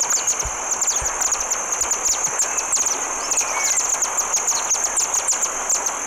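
Band-rumped Swift field recording: many quick, thin, high chips, each dropping in pitch, in an irregular twittering stream, over a steady high insect trill.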